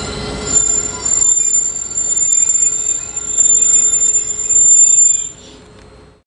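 Caltrain Stadler KISS electric multiple unit braking to a stop along the platform, with a steady high-pitched squeal. The squeal and the running noise drop away suddenly a little past five seconds in as the train halts.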